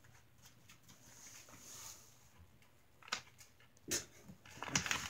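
Quiet sounds from a pet cat: two short sharp noises about three and four seconds in, then a louder run of sounds near the end.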